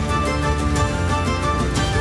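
Background music: sustained instrumental chords over a steady beat, with a strong hit about once a second.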